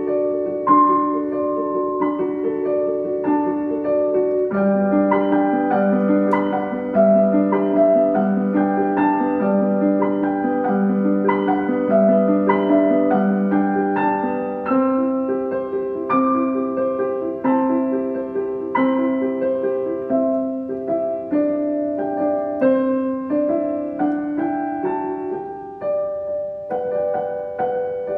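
Solo piano playing an instrumental piece: a repeating accompaniment figure alternating between two low notes about twice a second, under a melody of single higher notes.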